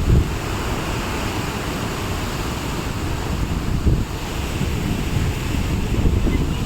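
Waterfall roaring close by, a steady rush of falling water, with wind buffeting the microphone.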